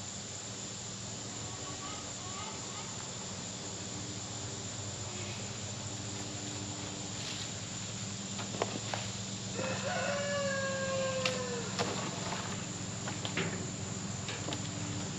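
A rooster crows once, a drawn-out call of about two seconds that falls away at the end, about ten seconds in, over a steady low hum.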